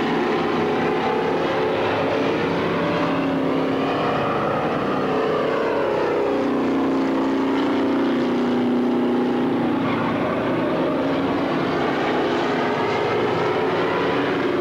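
Race car engines running, their pitch slowly rising and falling.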